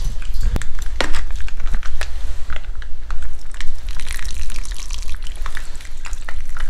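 Irregular clicks and crinkling rustles of handling, plastic packaging among them, over a steady low rumble.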